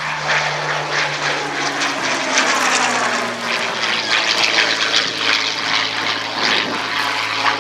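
Hawker Sea Hurricane's Rolls-Royce Merlin III V12 piston engine running, its note falling slowly, with a rushing hiss over it.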